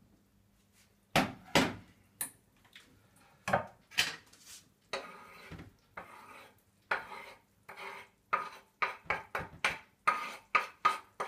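Two loud clanks of the pot lid being lifted and set down on the glass-ceramic hob. Then a run of scrapes and quick taps of a utensil against a dish, about three a second near the end, as a chopped garlic and green-onion mixture is knocked into the soup pot.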